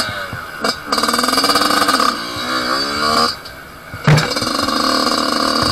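Yamaha off-road motorcycle engine under throttle on a dirt trail: a short blip, then revving up, its pitch sagging and climbing again. It eases off briefly, a thump comes about four seconds in, and the engine pulls hard and steady again.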